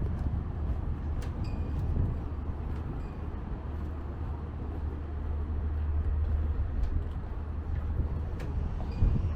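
Wind buffeting the microphone in a steady low rumble over city street noise, with a few faint ticks.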